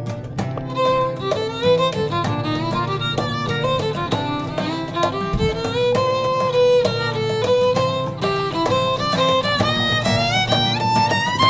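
Background music: a violin melody gliding between notes over a rhythmic accompaniment.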